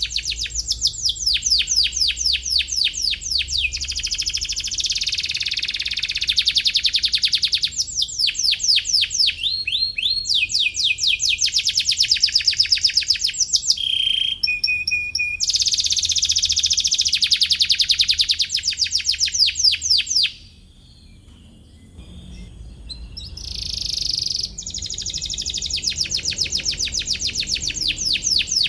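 Domestic canary singing: fast trills of quickly repeated high chirps, phrase after phrase with brief breaks, and a short lull about two-thirds of the way through.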